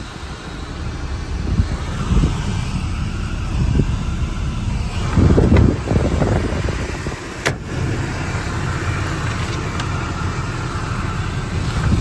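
A Sterling Bullet (Dodge Ram 5500) truck running with a steady low rumble that swells louder for a moment about five seconds in. There is one sharp click about seven and a half seconds in.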